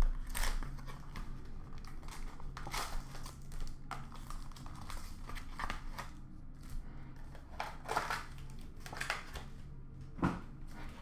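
2020-21 Panini Prizm Fast Break cardboard box being opened and its wrapped card packs lifted out and set down: short bursts of cardboard rubbing and wrapper crinkling, a few seconds apart.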